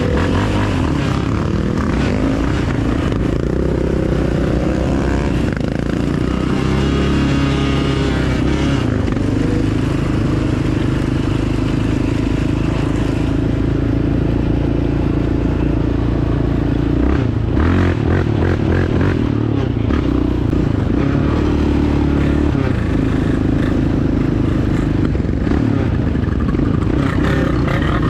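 Dirt bike engine running while riding, its pitch rising and falling with the throttle, with a few knocks along the way.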